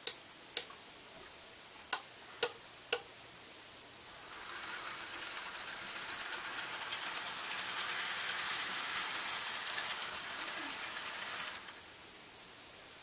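Five sharp electrical switching clicks from the layout's control gear. Then an N gauge model train runs along the track: a fast, fine rattle of wheels and small motor that grows louder as it comes nearer and stops abruptly when the controller cuts power.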